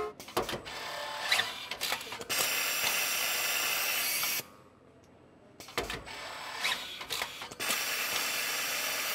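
Robotic tool working on a car-body panel on an assembly line: a run of clicks and clunks, then about two seconds of steady hiss that cuts off. The same cycle of clicks and hiss comes round again about five seconds later.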